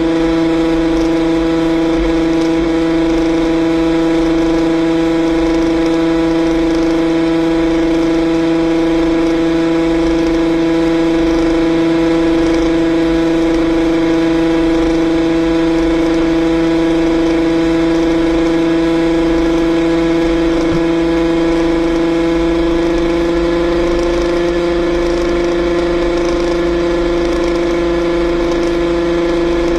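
Yamaha RXZ 135 cc two-stroke single-cylinder engine running hard at high, steady revs at highway speed, holding one unchanging note for the whole stretch. Wind rumbles on the microphone underneath.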